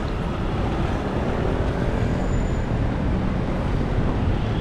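Steady road traffic noise of a city street, with continuous low engine and tyre noise and no single event standing out.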